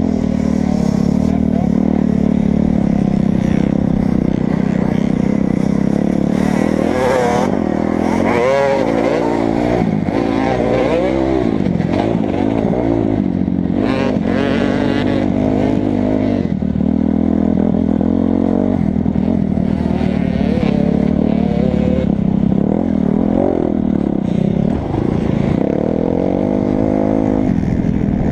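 2008 Kawasaki 250 dirt bike engine revving up and down as it is ridden hard around a motocross track, the pitch rising and falling with throttle and gear changes.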